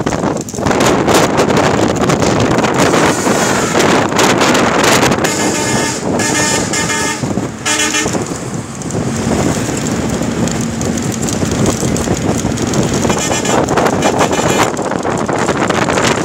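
Road and wind noise of a moving vehicle, heard from on board. A vehicle horn sounds for about two and a half seconds midway, and again briefly later.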